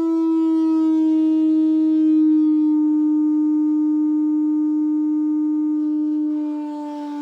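Test tone of a 50–400 Hz frequency sweep played through a Medion TV, sitting near 300 Hz and gliding slowly down. It carries a buzzy stack of overtones that thin out about three seconds in: the resonant interference behind the TV's squeaking sound.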